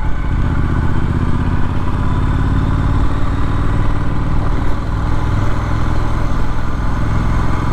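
Triumph Street Scrambler's 900 cc parallel-twin engine running steadily under way, with wind noise over the microphone.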